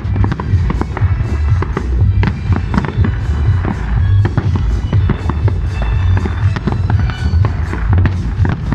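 Fireworks display: many shells bursting in quick succession, a dense, irregular run of bangs and crackles, with music playing underneath.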